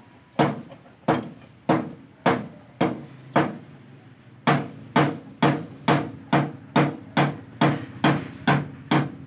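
Metal rod rammed down by hand onto a scooter front-end part, sharp ringing metal knocks about twice a second. The knocks pause briefly a little before the middle, then come a little faster.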